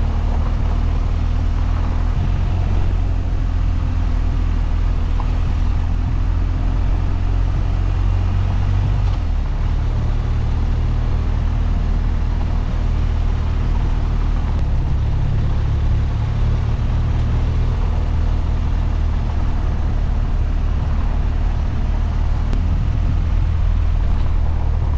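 BMW R 1250 GS boxer-twin engine running as the motorcycle rides along a gravel road, with an even hiss of tyres and wind beneath it. The engine note shifts a few times.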